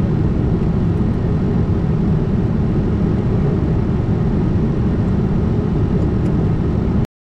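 Falcon 900C business jet cockpit noise in flight: a loud, steady rush of airflow and engine noise that cuts off suddenly near the end.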